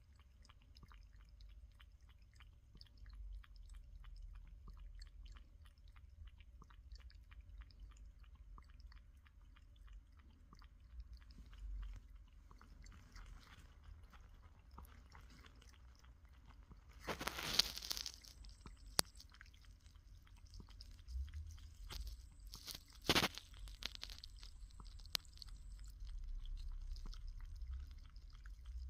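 Cat lapping water from a bowl: a steady run of small, quick wet clicks from its tongue. A louder rustle about two-thirds through and a sharp knock shortly after stand out over the lapping.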